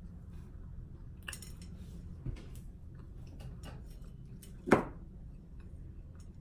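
Light clicks and taps of fingers and toast on a plate as pieces of bread are picked up by hand, with one sharp, louder knock nearly five seconds in.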